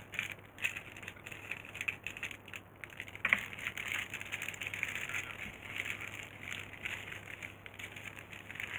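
Close handling noise: irregular crackling and rustling, with one sharper crack about three seconds in, over a faint steady hum.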